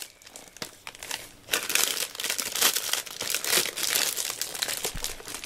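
Clear plastic wrapping around a cardboard box crinkling as it is handled, a dense run of crackles that starts about a second and a half in.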